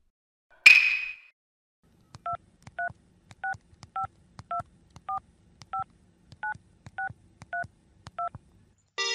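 A single bright chime, then a phone number keyed in on a touch-tone phone: eleven short dual-tone DTMF beeps, about one every 0.6 seconds, over a faint low line hum.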